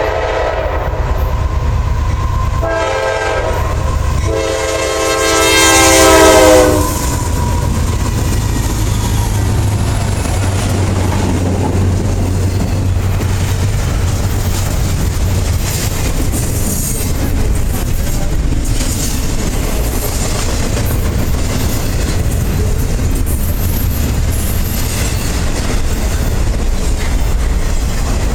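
Air horn of CSX GE CW44AC locomotive 250 sounding a chord in three blasts, the last the longest and loudest, ending about seven seconds in. The locomotive's diesel engine then drones past and the intermodal cars roll by with steady wheel rumble and clickety-clack.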